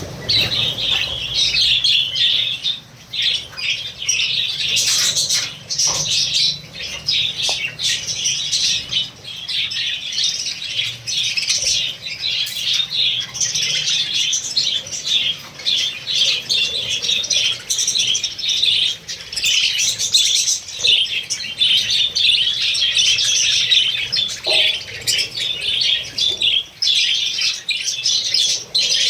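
A flock of lovebirds and budgerigars chattering and squawking together, with many short high calls overlapping without a break.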